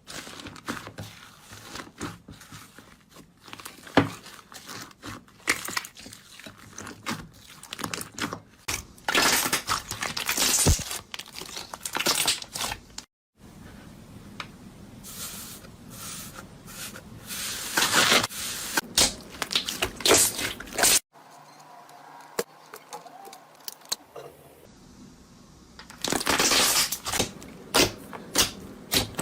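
Slime being squeezed, poked and stretched, making a busy run of crackling clicks, crunchy pops and wet tearing sounds, cut into short clips with two sudden breaks.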